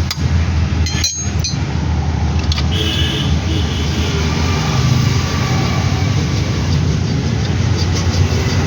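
A few sharp metallic clinks about a second in, over a steady low vehicle rumble.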